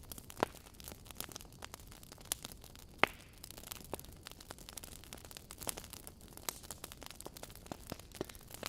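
Wood logs burning in a fireplace, crackling with many small irregular snaps over a soft hiss, and two louder pops, about half a second in and about three seconds in.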